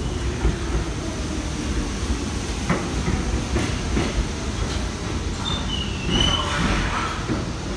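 New York City subway train pulling into a station: a steady rumble with wheels clacking over rail joints, and a high squeal from about five and a half seconds in as it slows.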